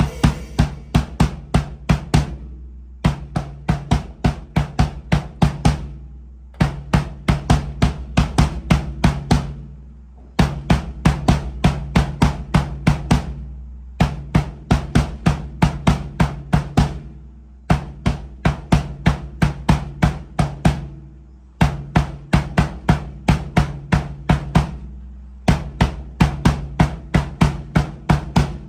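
Pearl Roadshow drum kit played in repeated short phrases of quick strokes, each phrase followed by a brief pause, with a low ringing drum tone under the hits.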